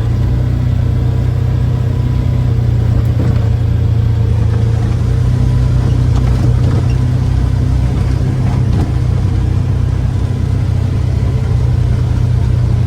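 Vehicle driving along an unpaved road, heard from inside the cab: a steady low engine and road rumble.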